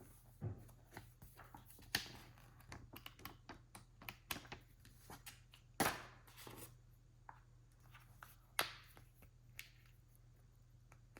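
Hands unpacking and handling a boxed revolver shotgun: scattered small clicks, taps and light rustling of packaging, with three sharper knocks about 2, 6 and 8.6 seconds in.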